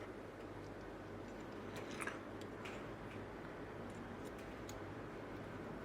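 Faint, scattered small clicks and light handling noise as wire connectors are pushed back onto the terminals of a new oven thermostat, loudest about two seconds in.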